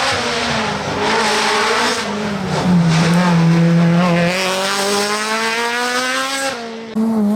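F2000 rally car's two-litre engine working hard on a stage. The revs dip about two and a half seconds in, then climb steadily for a few seconds, with a brief cut near the end as at a gear change.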